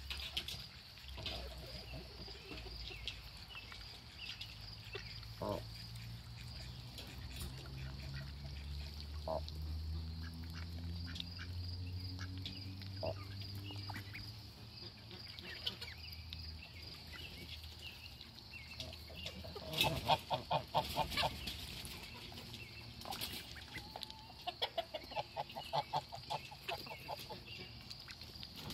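Ducks calling: a few single calls, then quick runs of quacking about 20 seconds in and again around 25 seconds, over a steady high-pitched hum.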